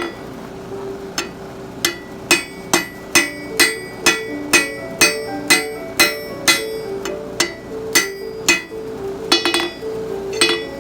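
Blacksmith's hammer striking steel on an anvil in a steady rhythm of about two blows a second, each blow with a short metallic ring. Background music plays underneath.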